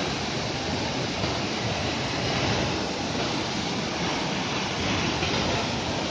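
Waterfall: a steady, loud rush of water cascading over rocks.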